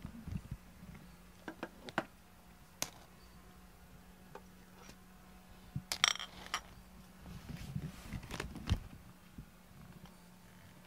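Metal jar lids and glass jars clinking and tapping as they are handled: scattered light clinks, with the loudest, ringing cluster about six seconds in and another sharp clink a little later. A steady low hum runs underneath.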